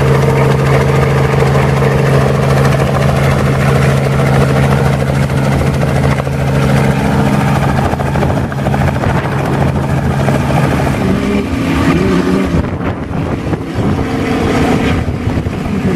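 Light two-bladed helicopter flying overhead: a steady drone of rotor and engine that wavers and dips a little about twelve seconds in.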